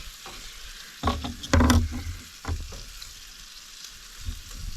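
Food sizzling steadily in a non-stick frying pan on a camp stove, with a burst of utensil knocks and scraping against the pan between about one and two seconds in.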